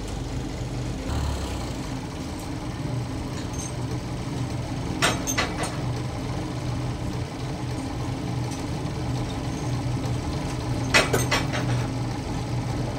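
Sawmill machinery running with a steady low hum, with clusters of sharp metallic clanks twice: a few quick strikes about five seconds in and again around eleven seconds.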